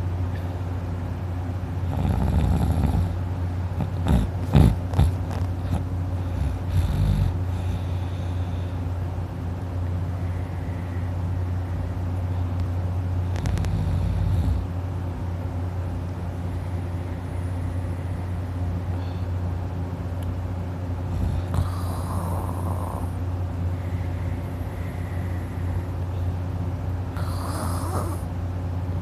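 A man snoring deeply in his sleep, a handful of separate snores spread irregularly over a steady low hum. A few sharp clicks or knocks sound about four to five seconds in.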